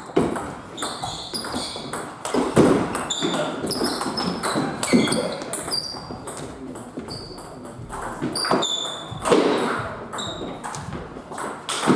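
Plastic table tennis ball knocking on rubber-covered paddles and ringing off the tabletop during a rally, an irregular run of sharp clicks, several with a short high ping after them.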